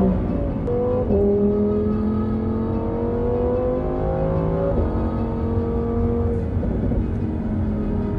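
Lamborghini supercar engine heard from on board during a hot lap: it upshifts about a second in, its pitch climbs steadily under full acceleration, then drops about five seconds in as the car lifts off and slows for a corner.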